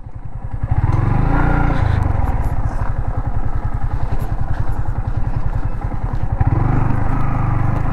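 Yamaha MT-15's single-cylinder engine pulling along a gravel track, close to the microphone. It rises over the first second as the throttle opens, then runs on steadily.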